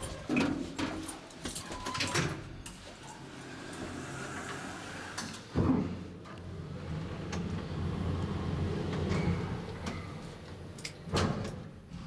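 Passenger elevator ride: a few sharp clicks of the doors and controls at the start, a thump about halfway through as the car sets off, a steady low hum from the drive while the car travels, and another thump near the end as it stops.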